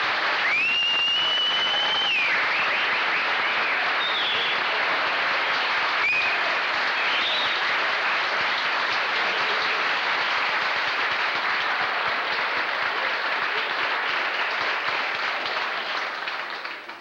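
Audience applauding after a brass quartet's number, with a long high whistle about half a second in and a few short whistles later. The applause dies away near the end.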